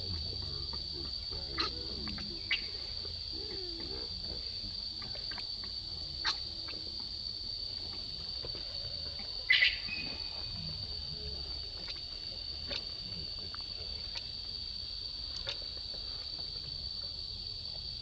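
Steady high-pitched drone of insects, unbroken throughout, with a few short sharp clicks over it, the loudest about nine and a half seconds in.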